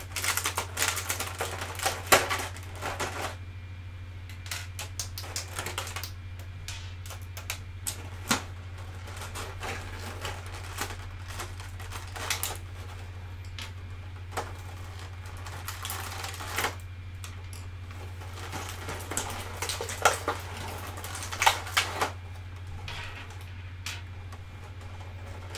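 Small hard-plastic toy accessories (bats, hockey stick, golf club) clicking and rattling as they are pulled from their packaging and set down on a tabletop, in irregular clusters, with a steady low hum underneath.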